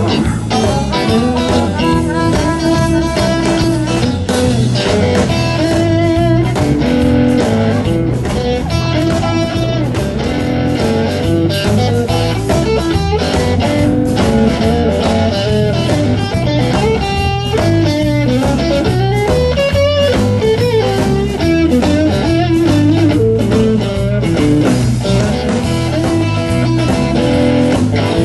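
Blues band playing an instrumental break, an electric guitar taking the lead with runs of quick single notes over a steady bass line and drums.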